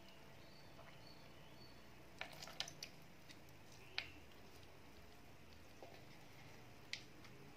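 Faint squelches and a few sharp little ticks of small lemon halves being squeezed by hand, juice dripping into a plastic jug. A cluster of them comes about two seconds in, then single ones at about four and seven seconds, over near silence.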